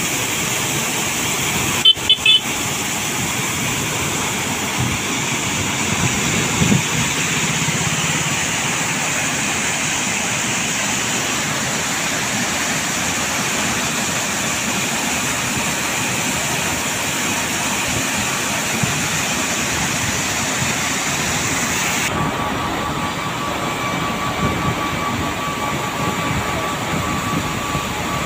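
Large water pumps discharging through a row of pipes, thick jets of water pouring into a canal with a steady rushing, and a short horn toot about two seconds in. Later on the rush grows duller and a steady whine from the pump machinery comes forward.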